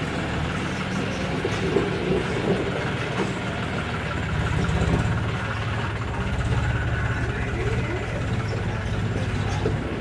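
John Deere 5105 tractor's three-cylinder diesel engine running steadily as it pulls a trailer loaded with mud across the yard.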